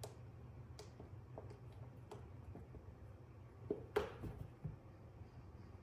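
Small puppy scuffling and pawing at a clear plastic floor mat: scattered faint clicks and taps, with a brief louder clatter about four seconds in, over a steady low hum.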